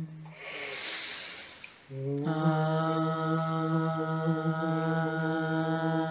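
A person chanting a long, steady low note in meditation. The chant breaks off about half a second in for a breath, starts up again around two seconds in, and steps up to the held pitch.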